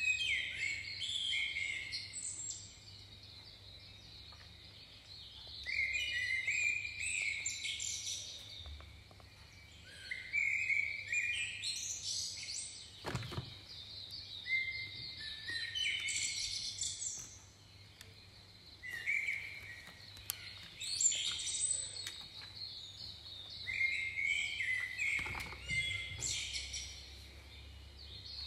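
Songbirds singing in repeated phrases of quick chirps and trills, with short pauses between phrases. A single knock comes about halfway through.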